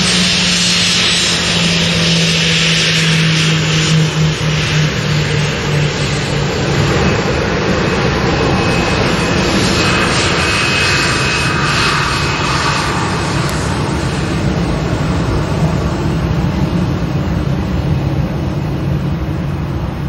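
Delta Boeing 737's jet engines running steadily as the airliner rolls along the runway: a loud even rush of engine noise over a low hum, with a thin high whine coming through for a few seconds about halfway.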